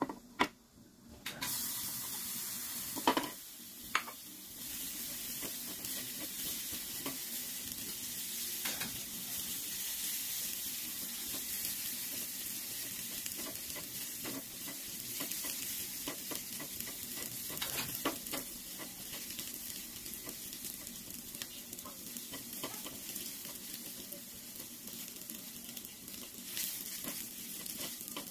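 Pork sizzling as it is stir-fried in a small nonstick saucepan on a gas stove, with a spatula scraping and stirring through it. The sizzle starts about a second in, with a couple of sharp knocks against the pan soon after.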